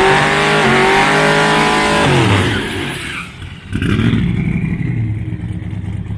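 1,500 hp twin-turbo Buick Skylark drag car doing a burnout: the engine held at high revs with the rear tyres spinning and smoking, the revs dropping off about two seconds in. After a brief lull the engine runs at low revs with a steady rumble as the car rolls forward.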